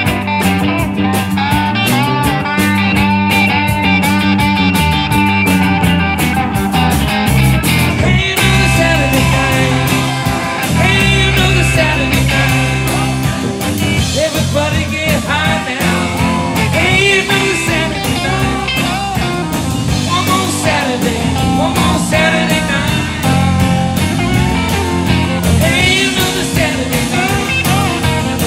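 Live rock band playing an instrumental jam: electric guitars over drum kit, bass and keyboard. The drumming changes about eight seconds in, after which a lead guitar plays lines of bending notes.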